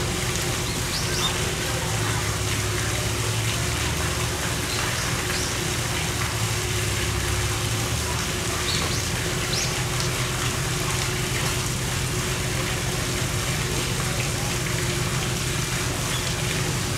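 Steady rush of flowing water with a faint steady hum under it, and a few short high bird chirps in the first ten seconds.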